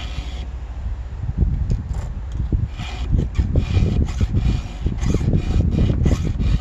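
A round chainsaw file rasps in repeated push strokes across the cutter teeth of a rip chain. The strokes come more often and sound brighter from about three seconds in. The tooth being filed has a damaged, rolled-over edge that drags on the file.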